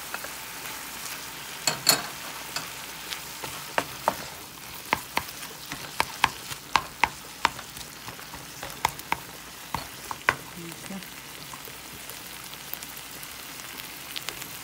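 Ground beef and chopped red onion sizzling in a frying pan, with irregular clicks and scrapes of a wooden spatula stirring against the pan. The clicking is busiest in the middle and mostly stops after about ten seconds, leaving the steady sizzle.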